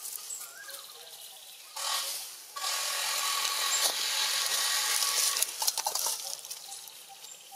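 Dry leaf litter rustling and crackling as macaques shift about on it. A short rustle comes about two seconds in, then a longer stretch of close, crackly rustling with many small clicks that thins out into scattered crackles.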